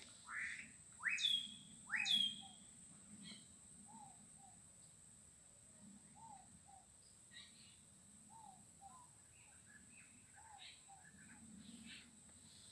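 Birds singing: three loud, quickly rising whistled notes in the first couple of seconds, then a soft low two-note call repeating about every second, with scattered higher twittering in the second half. A steady high-pitched cricket trill runs underneath.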